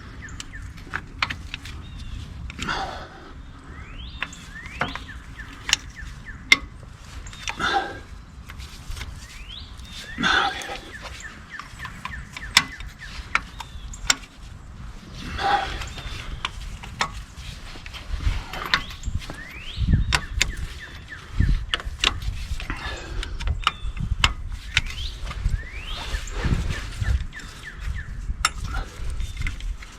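Cylinder head bolts on a Ford 555 backhoe engine being loosened by hand with a wrench: repeated sharp metal clicks and clinks of the tool, with several short squeaky creaks as tight bolts turn.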